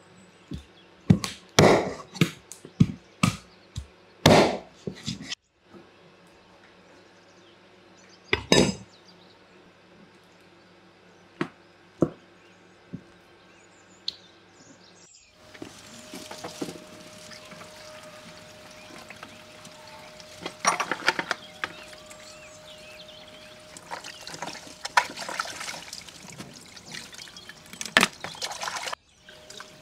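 A knife chopping raw chicken on a wooden board: about a dozen sharp chops in quick succession over the first five seconds. A few isolated knocks follow. From about halfway, tap water runs into a plastic bowl, splashing as the chicken pieces are rinsed by hand.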